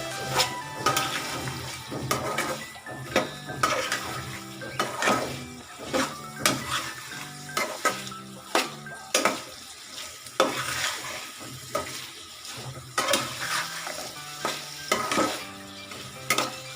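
Pigeon meat and potatoes frying in oil in a pan, stirred so that the utensil knocks and scrapes against the pan every second or so over a steady sizzle, as the spiced meat is sautéed.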